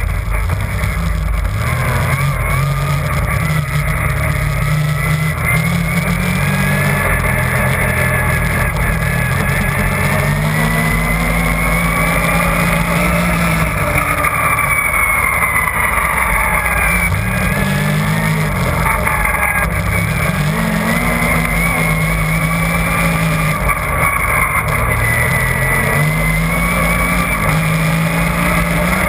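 Yamaha Nytro RTX SE snowmobile's four-stroke three-cylinder engine running at trail speed, heard close up from the rear bumper. Its pitch rises and falls several times as the throttle is let off and opened again, with a whine over the top.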